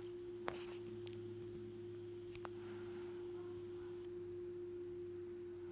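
Faint steady single-pitched hum with a lower hum beneath it, and two faint clicks about half a second and two and a half seconds in.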